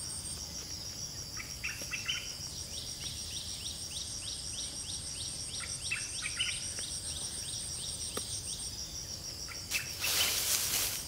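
Forest ambience: insects trilling steadily at a high pitch, with a bird repeating short chirps, two or three a second, through the middle. A burst of rustling comes about a second before the end.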